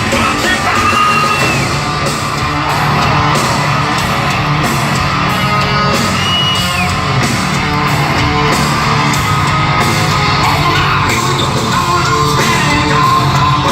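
Live hard rock band playing loud and steady: distorted electric guitars, bass and drums, with a vocalist singing and yelling over them, heard in a large reverberant venue.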